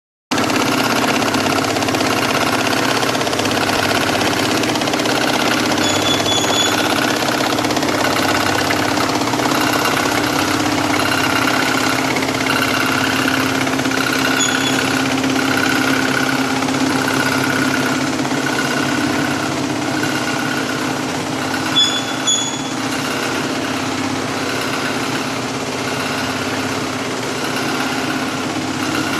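DZ-52 mattress border-tape machine running: a steady mechanical drone from its multi-needle sewing head and feed, pulsing about once a second. A few short, sharp metallic clicks come through it, three times.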